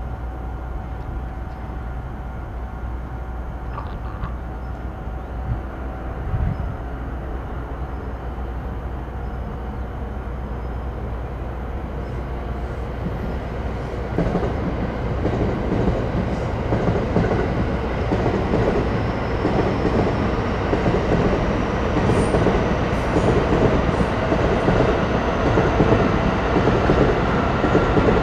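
N700 series Shinkansen train arriving at a station, its running noise growing steadily louder from about halfway in as it draws near.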